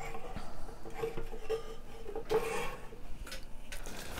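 Aluminium beer cans being shuffled and slid together on a wooden table: light rubbing and scraping with a few soft knocks, one longer rub about two and a half seconds in.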